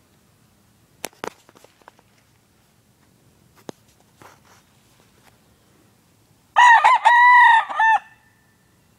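A young gamefowl rooster (stag) crowing once, a loud cock-a-doodle-doo about a second and a half long, starting about six and a half seconds in. Before it, only a few light rustles and ticks in dry leaves.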